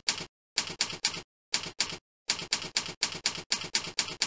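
Typewriter key-strike sound effect, one clack per letter, in quick runs of strokes broken by short pauses between words.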